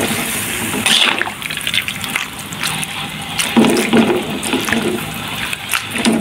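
A metal spoon stirring intestines in a pan of water and sweet soy sauce: liquid sloshing, with frequent short clicks of the spoon against the pan.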